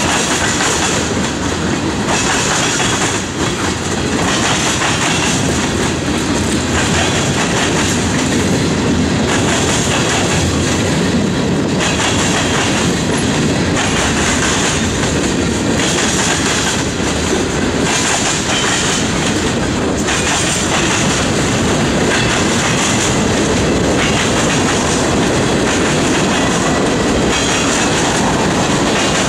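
Freight cars of a passing manifest train rolling by close up: steel wheels clattering over the rail joints, with steady loud wheel-on-rail noise and repeated clacks as each car's wheels cross.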